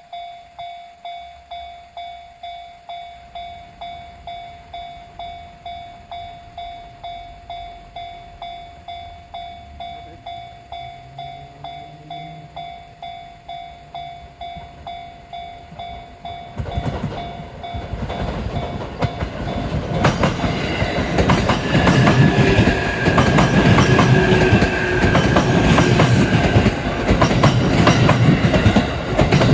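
Japanese level-crossing warning bell ringing steadily, about one and a half strikes a second. About 16 seconds in, a JR East E531 series electric train comes up and passes over the crossing, getting louder, with rhythmic wheel clatter over the rail joints and a steady whine, while the crossing bell keeps ringing underneath.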